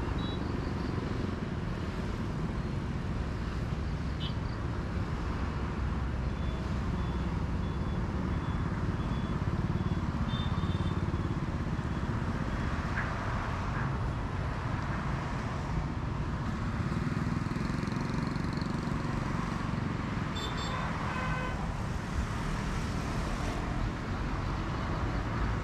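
Steady roadside traffic rumble of passing motorbikes and cars, with a few short high horn toots.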